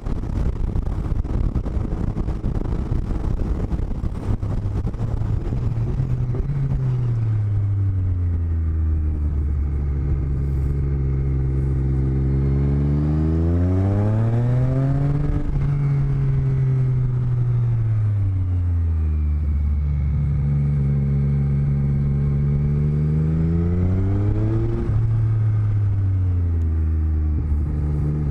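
Motorcycle engine heard through helmet-mounted microphones: after a few seconds of loud wind rush, the engine note drops, holds steady, then climbs and falls again as the bike speeds up and slows, with a sudden drop in pitch near the end like a gear change.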